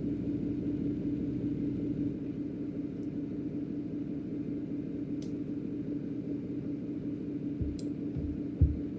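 A steady low hum with a held tone, with a couple of faint clicks and a few soft knocks near the end.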